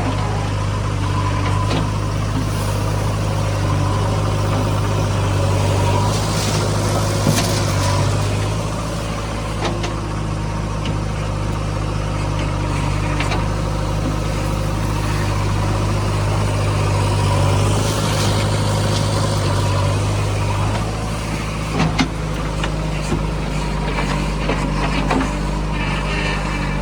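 Heavy diesel engine running steadily at a low, even pace, with a few short metallic knocks, one about seven seconds in and a couple near twenty-two seconds.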